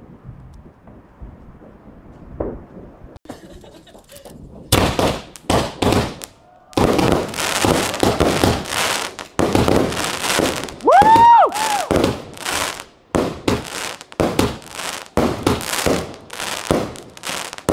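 Aerial fireworks going off. After a few quieter seconds, a rapid run of bursting bangs and crackle follows. About eleven seconds in, a whistle rises and then falls in pitch.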